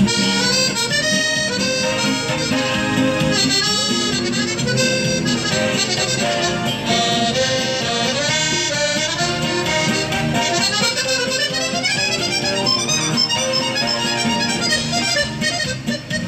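Live dance music from a small band, a free-reed lead like an accordion playing a quick melody over a steady accompaniment.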